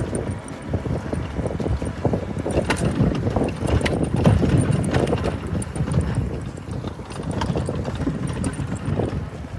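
Bicycle rolling over wet, slushy, icy pavement: a steady low rumble of the tyres with irregular knocks and rattles as the frame and handlebars jolt over the rough surface.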